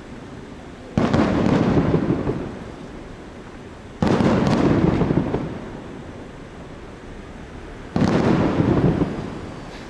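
Three aerial firework shells bursting, about one, four and eight seconds in, each a sudden boom followed by a rolling rumble that fades over a couple of seconds.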